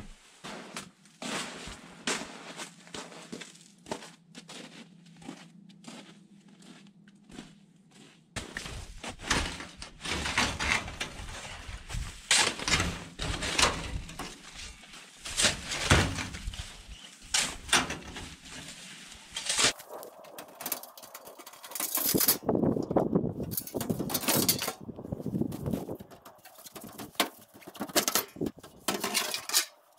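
Light clicks and knocks over a steady low hum, then from about eight seconds in, repeated scrapes and crunches of a snow shovel digging into packed snow, with irregular strokes.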